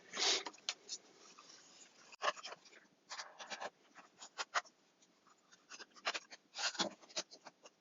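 Scattered light clicks, taps and scrapes of a flat-pack enclosure's panels and screws being handled and fitted together.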